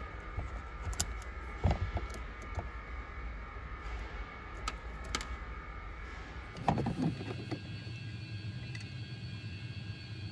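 Handheld wire crimper clicking as a splice connector is crimped onto a thin wire, with small handling noises of wires and connectors over a steady background hum. The loudest click comes about two seconds in, and a short cluster of handling noises follows about two-thirds of the way through.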